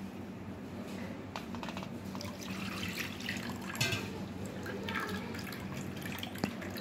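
Wooden spatula stirring and pressing watered-down yogurt through a plastic sieve: wet scraping and sloshing, with the strained curd dripping and trickling into the pot below.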